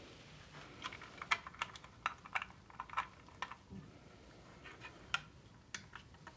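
Light, irregular clicks and taps of small hardware being handled as an Intel i7 8700K CPU is set back into a motherboard's CPU socket, about a dozen and a half sharp clicks spread through.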